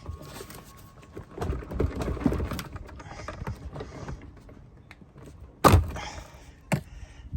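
A camper's water tank being pulled loose from its cabinet: irregular scraping and rubbing with small knocks, and one loud knock about two-thirds of the way through.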